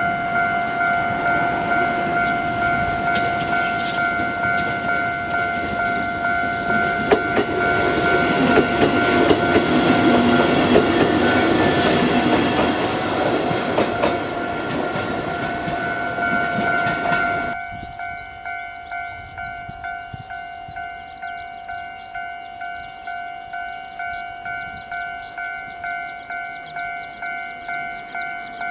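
Kotoden 1080-series electric train (ex-Keikyu 1000 series) running past with wheel clatter over the rail joints, loudest about ten seconds in, over the steady repeated ringing of a railway level-crossing alarm. The train noise cuts off suddenly after about seventeen seconds, leaving the crossing alarm ringing on its own at about one and a half strikes a second.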